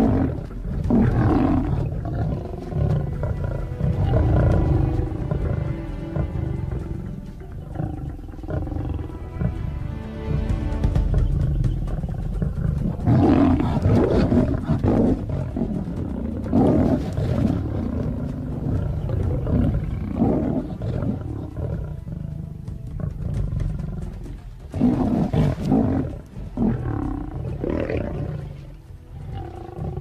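Lions growling and roaring in a confrontation, with loud outbursts about halfway through and again near the end, over background music.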